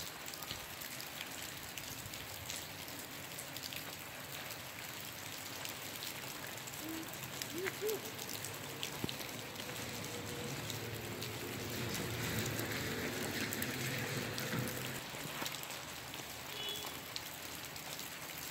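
Light rain falling: a steady hiss with many small drop clicks hitting the wet ground and surfaces.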